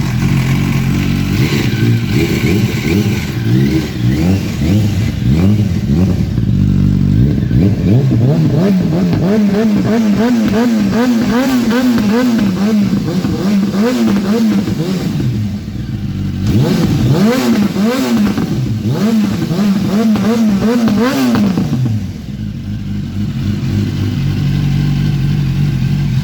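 Yamaha YZF-R1 998 cc four-cylinder engine running loud through an aftermarket Yoshimura carbon-fibre exhaust. It idles just after start-up, then is revved up and down over and over from about five seconds in until about twenty-one seconds, and settles back to idle near the end.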